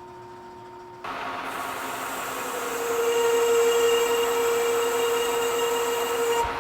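A metal-working machine tool running, a steady whine with a hiss over it. It starts abruptly about a second in, grows louder from about three seconds in, and cuts off abruptly near the end.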